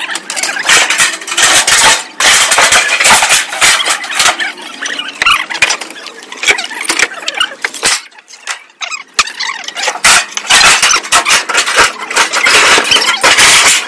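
Clattering and scraping of rubble being pulled apart by hand: metal sheets, a metal window frame, wooden planks and bricks knocking and dragging against each other, in two long stretches with a lull about eight seconds in.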